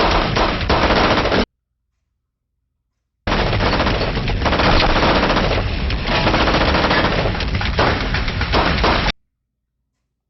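Rapid automatic gunfire from a TV drama soundtrack, shots crowding together in dense volleys. It breaks off into dead silence about a second and a half in, resumes about three seconds in, and cuts off suddenly about nine seconds in.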